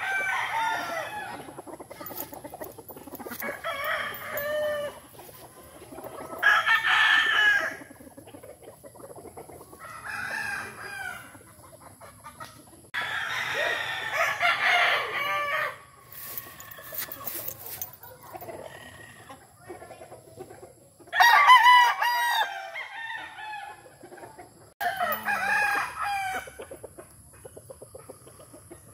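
Gamefowl roosters crowing over and over, a crow every few seconds, with quieter calls in between.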